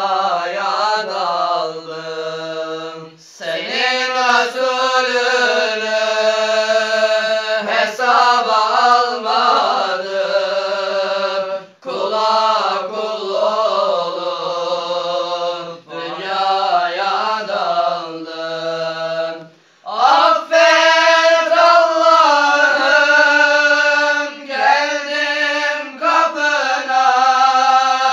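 Young men's voices singing an unaccompanied Islamic religious chant together, in long ornamented phrases broken by brief pauses for breath.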